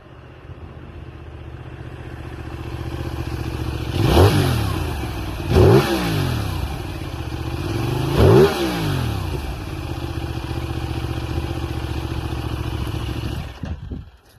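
Benelli 752S's 754 cc parallel-twin engine through its stock exhaust, growing louder and then revved hard three times, each rev rising and falling in pitch, before running steadily and cutting off suddenly near the end.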